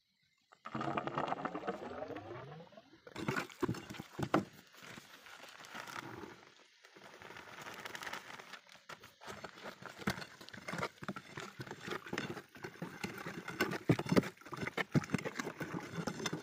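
Handling and mixing sounds: white powder poured from a plastic sack into water in a cut-down plastic jerrycan to make the slurry for charging drill holes. The sack rustles, and there are irregular knocks and scrapes. The sounds begin about a second in after a brief silence.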